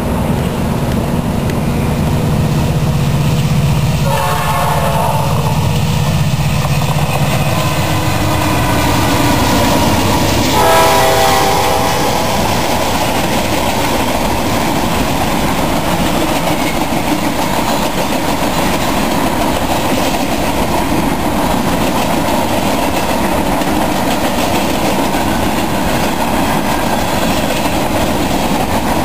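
Freight train passing at speed: the lead diesel locomotive sounds its horn twice, about four and ten seconds in, over its engine, then the steady rumble and clatter of freight cars rolling by on the rails.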